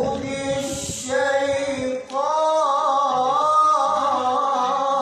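A man reciting the Qur'an in the melodic tilawah style, holding long notes that waver with ornaments. There is a short break for breath about two seconds in, then one long, wavering held note.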